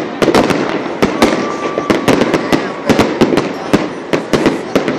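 Aerial fireworks going off in a dense barrage: sharp bangs and reports several times a second, over a continuous bed of noise.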